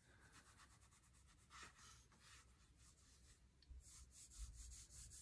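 Faint scratchy brushing of a watercolour brush stroking across paper in a string of short strokes, a little stronger near the end.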